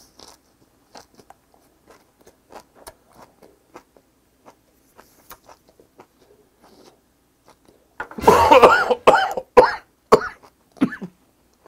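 Faint chewing and mouth clicks, then about eight seconds in a man breaks into a fit of loud coughing, several coughs in a row, set off by a lump of wasabi in his mouthful.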